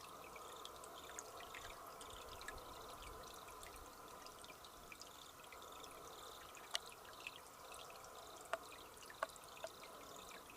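Faint, steady trickle of water with scattered drips plinking, a few louder drips in the second half.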